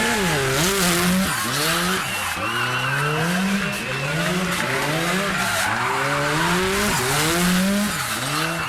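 Rally car engine revving hard, its pitch climbing and dropping back again and again about once a second as it is driven through a stage, with a high wavering whine over it.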